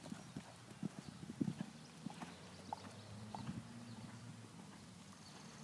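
Horse cantering on a sand arena, a run of dull hoofbeats in the soft footing. They are loudest in the first couple of seconds, then fainter and steadier as the horse moves away.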